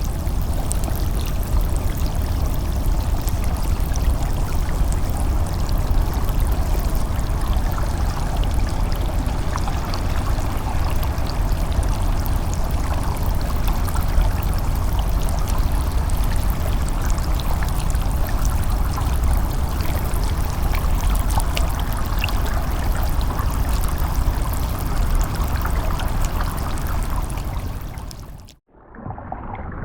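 Steady rushing water noise with a deep low rumble and a fine crackle of tiny clicks on top, one continuous effect that cuts off abruptly near the end.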